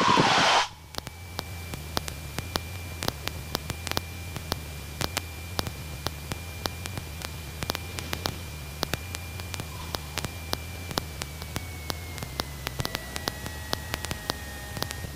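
Crackly cockpit audio of a Cessna 150 on final approach: steady hiss and frequent static clicks over a low engine drone, with a faint steady whine that dips slightly in pitch about twelve seconds in.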